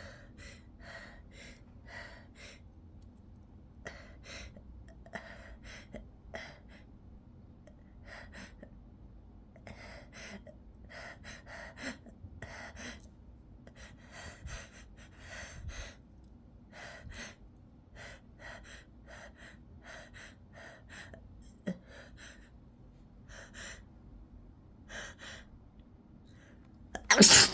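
A person breathing in quick, sharp gasps, about two a second, during a long sneeze buildup brought on by pepper in the nose. Near the end it breaks into one loud sneeze.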